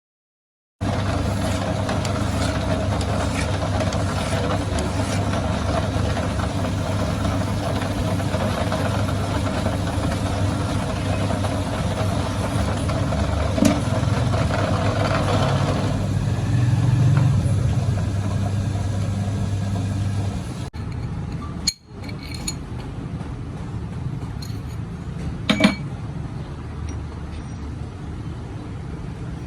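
A machine running steadily with a low hum, then a cut to a quieter stretch about two-thirds through with a few sharp clicks.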